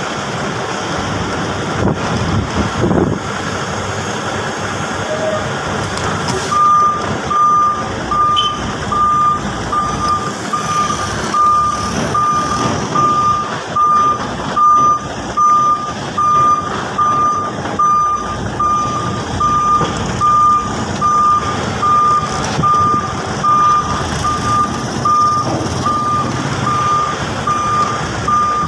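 Tractor-trailer truck's reversing alarm beeping at one steady pitch, a little more than once a second, starting about six seconds in, over the truck's diesel engine running at low speed as it backs up.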